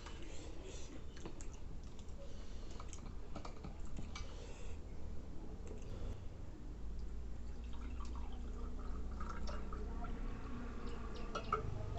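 Soft scattered clicks and taps from eating and handling dishes at a meal, over a low steady hum that grows louder about halfway through.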